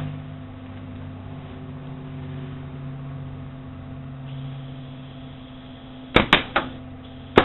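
A steady low hum, then about six seconds in three short, sharp crackles in quick succession and one more just before the end: a welding arc struck in brief tacks.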